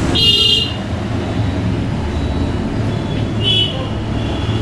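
Steady rumble of road traffic, with two short high-pitched beeps: one just after the start and another about three and a half seconds in.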